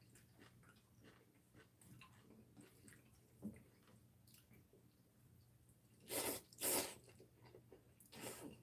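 A person eating bibim noodles: faint chewing and small chopstick clicks, then loud noodle slurps twice about six seconds in and once more near the end.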